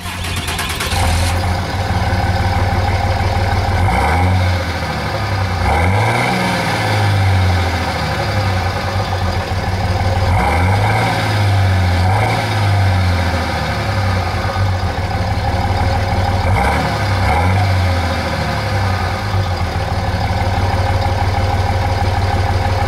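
A 2007 Dodge Ram 2500's Cummins inline-six turbodiesel heard at the tailpipe, idling and revved up and back down several times.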